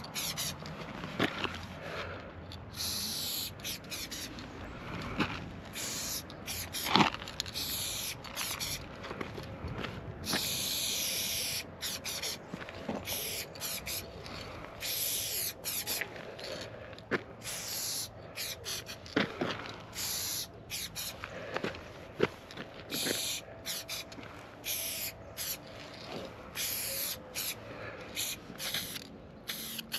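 Aerosol spray paint can spraying in repeated hissing bursts, some brief and some a second or two long, as lines are painted onto a wall. A few sharp clicks fall between the bursts, the loudest about seven seconds in.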